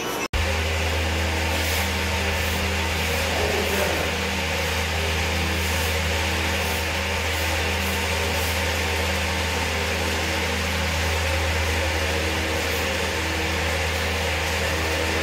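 Steady mechanical hum, a low drone with even overtones that starts just after a brief cut near the beginning and holds level until it stops at the end.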